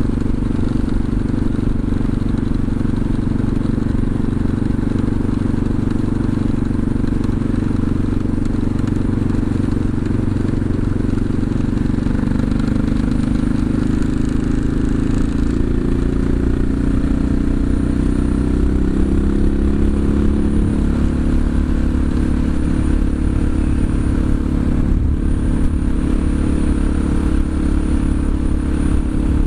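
CCM DS 644's big single-cylinder engine running steadily under way at a constant speed, the pitch wavering a little about halfway through.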